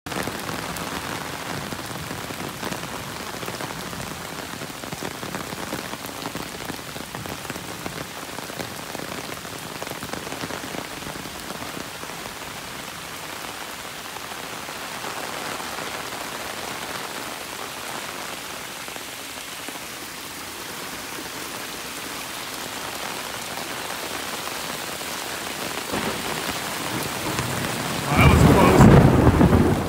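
Heavy rain pouring steadily onto a flooded stone patio and the surface of a swimming pool. Near the end a close thunderclap breaks in suddenly, much louder, with a deep rumble.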